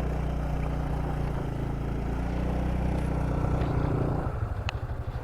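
Motorcycle engine running under throttle, its pitch rising a little, then dropping to a slow, pulsing idle about four seconds in.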